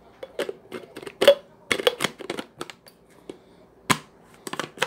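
Small hard objects being handled: an irregular series of clicks and light knocks, the loudest a little over a second in and just before four seconds in.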